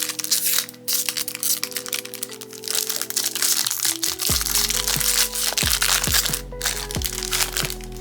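Foil booster-pack wrapper crinkling and crackling as it is torn open and the cards are pulled out. Background music plays, with a bass beat coming in about halfway.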